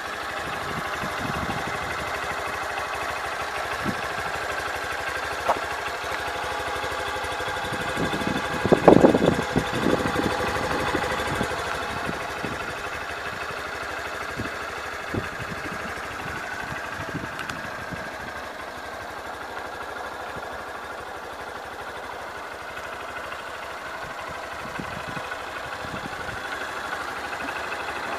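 Honda CBF125 motorcycle's single-cylinder four-stroke engine idling steadily, with a cluster of louder knocks about nine seconds in.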